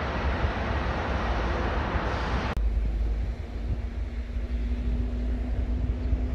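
Wind buffeting the microphone over a steady rush of road traffic. About two and a half seconds in, the traffic rush cuts off suddenly, leaving the low wind rumble and a faint steady hum.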